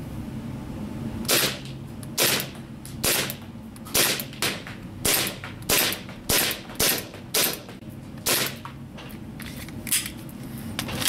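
WE Hi-Capa 5.1 gas blowback airsoft pistol firing about a dozen single shots, spaced roughly half a second to a second apart.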